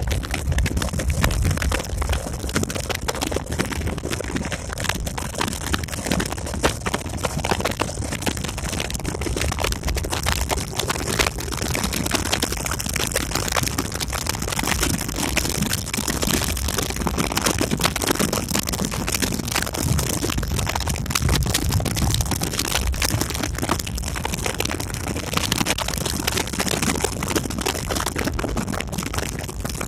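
Motorcycle riding along a road, heard from the rider's seat: the engine running under a steady rush of wind buffeting the microphone.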